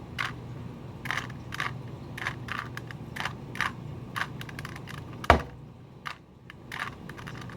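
Rubik's Cube being twisted by hand: irregular plastic clicks and clacks, about one or two a second, with one sharper, louder clack about five seconds in.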